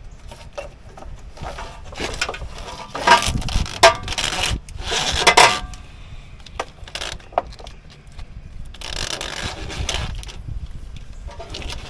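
Irregular scraping, rattling and clicking of a wiring harness and nearby parts being handled and fed through, with louder scraping stretches about three, five and nine seconds in.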